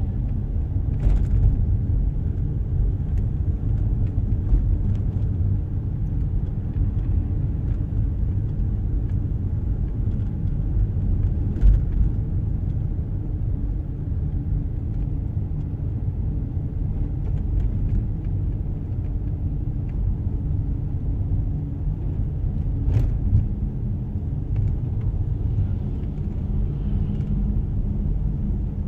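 Steady low rumble of a car driving at low speed, its engine and tyre noise heard from inside the cabin, with a few faint knocks.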